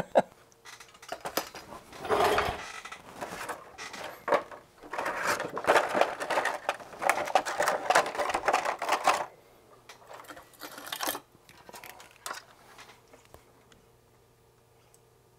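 Clear plastic clamshell packaging crackling and rattling as it is handled, with small fan cables and adapters clicking against it; the noise is dense for most of the time, thins to scattered clicks, then stops.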